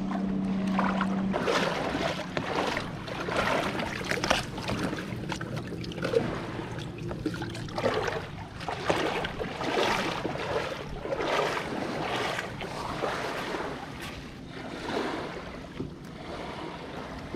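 Water splashing and sloshing in repeated surges about once a second, as someone moves through the lake water. A steady low hum runs under it for the first second or so, then stops.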